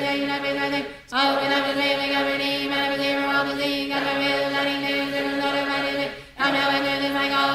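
Voices rapidly chanting a devotional decree in unison on one steady pitch, breaking off twice, about a second in and near the end.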